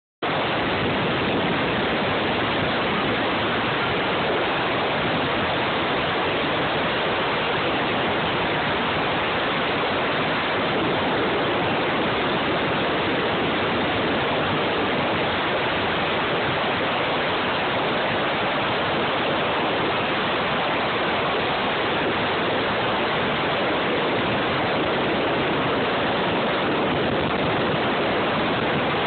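Steady, even rush of wind and water noise aboard a 1976 Cigarette powerboat running at speed, with no distinct engine note standing out.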